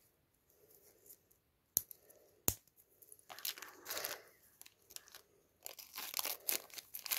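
Small clear plastic zip bags crinkling and rustling as the magnetic snap clasps packed in them are handled, after two sharp clicks about two seconds in.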